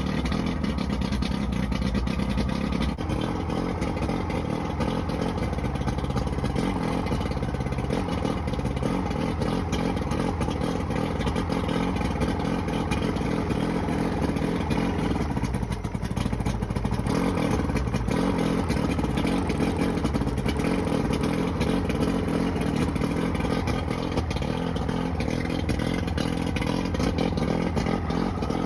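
Johnson 90 hp V4 two-stroke outboard motor running steadily, with a brief dip about halfway through. It is running on only some of its cylinders: two starboard-side cylinders are misfiring, which the owner puts down most likely to a bad power pack.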